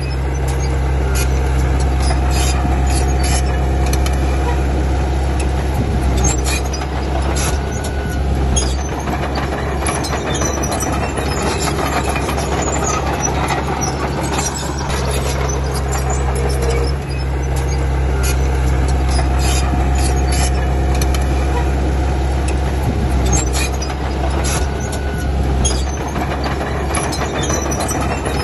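Komatsu D31P crawler bulldozer's diesel engine running steadily under load, with frequent clanks and rattles from the tracked machine. The low engine drone eases briefly three times.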